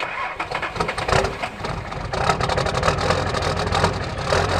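Nissan Patrol ute's TD42 diesel engine idling just after a cold start, with a fast, even clatter.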